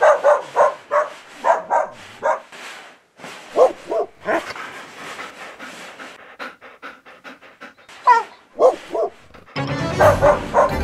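A dog barking in quick clusters of short barks and a few sharper yips, with pauses between. Music with a steady beat comes in near the end.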